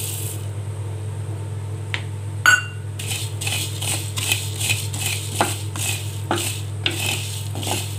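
Coriander seeds pouring into a dry clay kadai. From about three seconds in, a wooden spatula stirs them against the clay in quick repeated strokes, as the seeds begin to dry-roast. A single sharp clink comes about two and a half seconds in.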